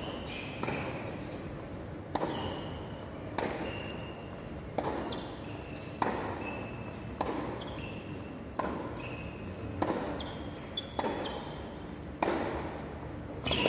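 Tennis rally on an indoor hard court: sharp racket-on-ball strikes about every second and a quarter, each echoing through the large arena. Short high shoe squeaks come between the shots.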